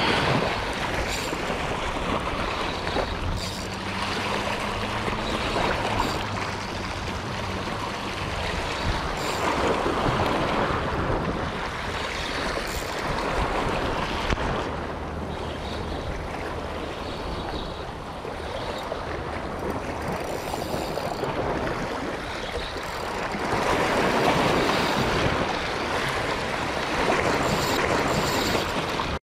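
Sea water washing and wind buffeting the microphone: a steady noisy wash that swells louder a couple of times.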